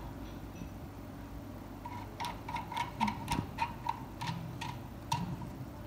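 Plastic phone holder of a ring light being twisted onto its threaded mount, giving a run of small sharp clicks, about three a second, that start about two seconds in and stop near the end.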